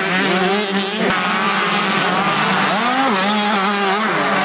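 Several motocross bike engines running at once, one holding a steady note while others rise and fall in pitch as the throttle is opened and closed.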